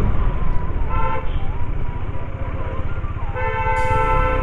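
Single-cylinder engine of a KTM Duke 250 motorcycle running at low revs while riding. A vehicle horn gives a short toot about a second in and a longer blast near the end.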